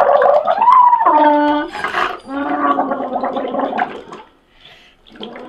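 A child blowing through a drinking straw into a cup of soapy bath water, making a loud bubbling gargle with a hum that rises and falls in pitch. It stops about four seconds in.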